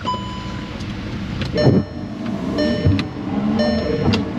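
Volkswagen Jetta's windshield wipers running with the ignition on, the wiper motor and blades sweeping back and forth with a stroke about every second and a click at each turn. A short electronic warning beep from the car repeats about once a second over them.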